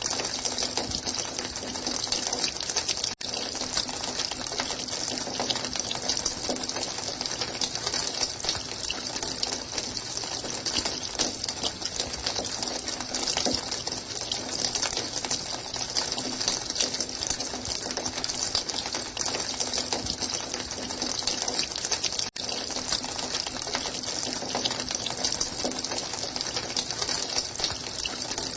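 Running water, a steady hissing rush that drops out for an instant twice, about 3 seconds in and again about 22 seconds in.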